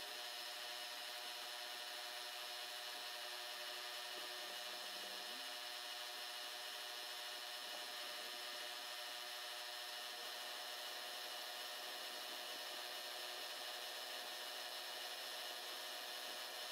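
Milling machine running steadily as a small end mill cuts a hinge pocket in a miniature shaper body under cutting fluid. The spindle drive gives a steady hum of several tones over a scraping hiss, with a small shift in pitch about five seconds in.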